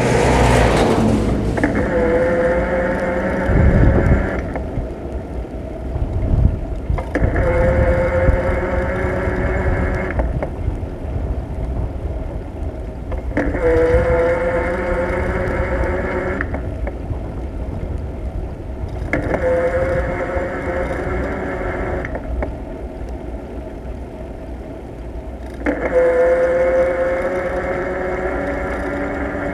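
A van drives past at the start with a short rush of noise. After that comes wind rumble and road noise from a moving bicycle, with a whirring tone that comes in for about three seconds at a time, five times, rising slightly in pitch each time.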